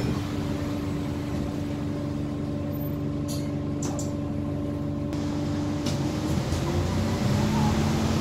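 Interior of an Alexander Dennis Enviro400H hybrid double-decker bus: the hybrid drive whines with a steady tone over road rumble, the tone cutting off about six seconds in and a lower one starting about a second later and slowly rising.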